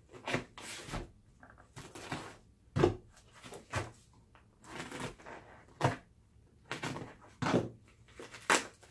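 Scissors snipping into a padded plastic mailer, with the plastic crinkling as it is handled: a string of short, irregular cuts and rustles.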